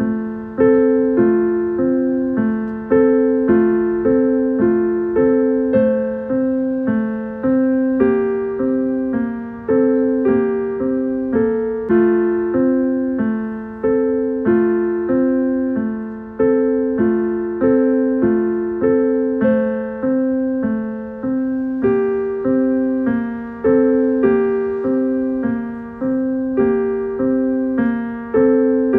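Background piano music: a gentle, repeating pattern of struck notes, about two a second, each fading before the next.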